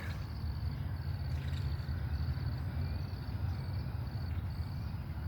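Insects chirping outdoors in short high-pitched pulsed trills that repeat every second or so, over a steady low rumble.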